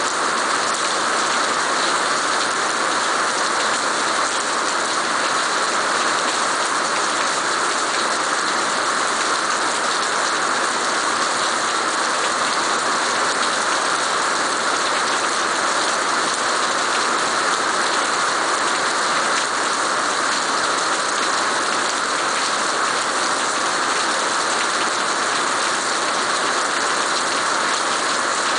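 Heavy rain falling steadily onto wet stone paving slabs and garden plants.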